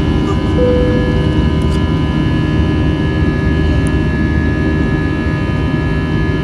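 Cabin noise of an Airbus A320 climbing just after takeoff: a steady, loud rumble of jet engines and airflow, with several steady whining tones above it.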